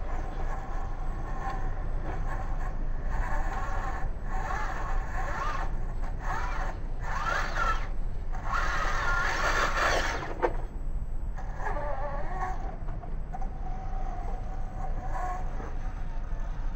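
1/18-scale brushless RC rock crawler's motor and drivetrain whining in repeated bursts as it is driven, the pitch rising and falling with the throttle; the longest, loudest burst comes about two-thirds of the way through.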